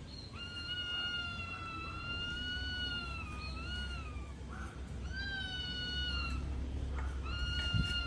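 Pet parrot giving three long, drawn-out pitched calls: the first holds for about four seconds and wavers up and down at its end, a shorter one follows about five seconds in, and a third begins near the end.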